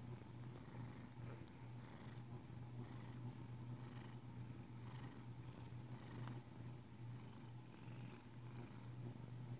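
Domestic cat purring faintly and steadily while being stroked under the chin, the purr swelling slightly about once a second with its breathing.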